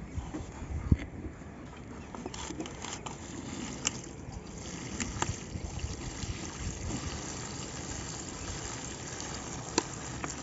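Liquid pouring in a steady trickle from a plastic drum's spout through a paper funnel into a bottle, with a few sharp clicks from handling the drum and bottle.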